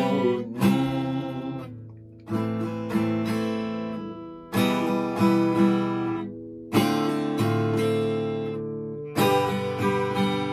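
Acoustic guitar strumming chords, a new chord about every two seconds, each one ringing out and fading before the next.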